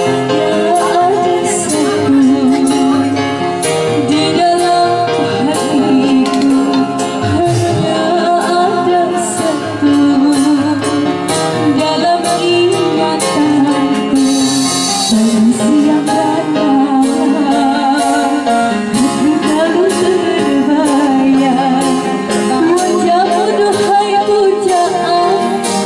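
A woman sings a melodious vocal line into a microphone over a live band: electric keyboard, electric guitar, and kendang hand drums keeping a steady beat.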